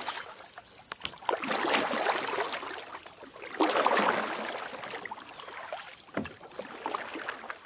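Water sounds for the intro: splashing and washing water in two main swells a couple of seconds each, with a weaker wash near the end and scattered small drips and clicks.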